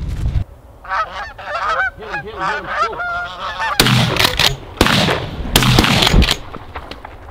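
Canada geese honking as a flock comes in, a rapid string of wavering calls, then several loud shotgun blasts about a second apart.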